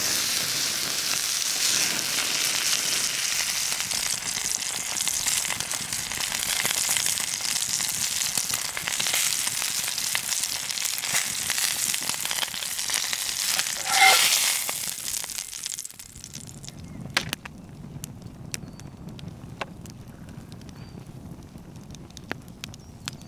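Thick steak sizzling hard in an iron pan over an open wood fire, a dense steady hiss with a brief louder flare-up about fourteen seconds in. About sixteen seconds in the sizzle stops, leaving the much quieter wood fire burning with scattered sharp crackles and pops.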